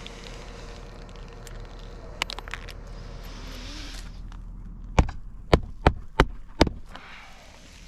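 Roofing hatchet hammering a roofing nail into a replacement asphalt shingle: five sharp strikes in quick succession about five seconds in.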